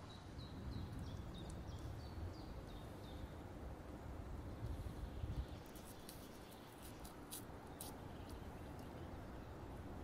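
A small bird chirping a run of short high notes for the first few seconds, over a steady low outdoor rumble. A few sharp clicks come near the two-thirds mark.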